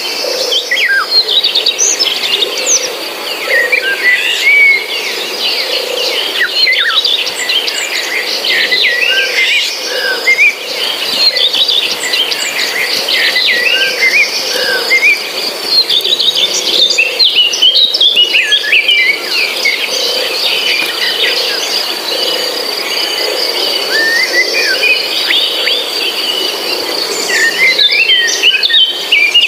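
Forest ambience: many birds chirping and calling in quick, overlapping phrases over a steady, high-pitched insect trill.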